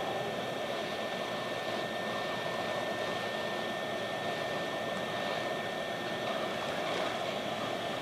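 Hot-air rework station blowing a steady stream of hot air onto a charging port's solder joints on a phone circuit board, heating them toward reflow. An even airflow hiss with a thin steady whine under it.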